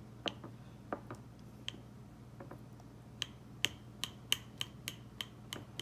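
Sharp, irregular clicks as holes are poked in an unbaked pie crust, the tool tapping the pie pan beneath the dough. The clicks are sparse at first and come faster in the second half.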